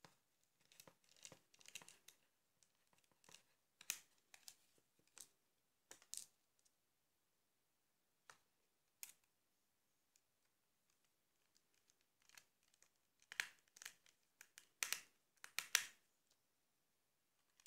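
Plastic parts of a Nokia 1100 mobile phone's housing being prised and handled with a screwdriver: scattered short scrapes and clicks. The strokes come in small groups and are thickest and loudest near the end.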